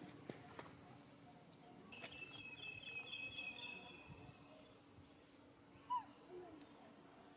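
Quiet outdoor background with animal calls: a long, high, wavering call about two seconds in, then a short, sharp falling chirp near the end, the loudest sound here.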